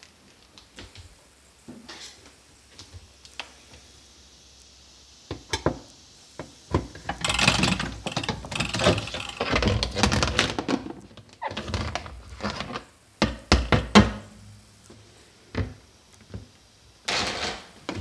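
Irregular knocks and thunks with rustling handling noise, sparse at first, dense through the middle, with one more short burst near the end.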